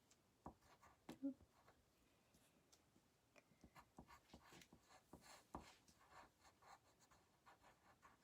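Faint, irregular scratching and light tapping of colour pencils drawing and colouring on paper.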